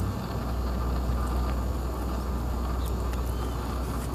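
Steady low rumble with an even hiss: outdoor background noise with no distinct event, broken only by a few faint clicks.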